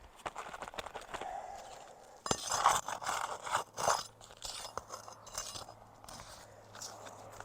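Metal tool clinking and scraping against brittle asphalt shingles while staples are worked loose to pull a shingle, with crunching of the crumbling shingle; the loudest burst of scraping comes a little over two seconds in. A faint low hum joins about halfway through.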